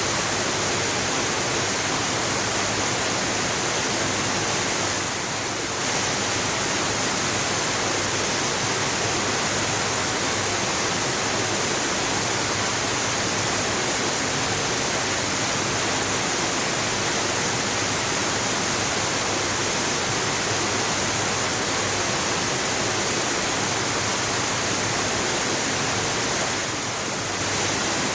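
Waterfall: a steady, even rush of falling water, dipping slightly in level twice.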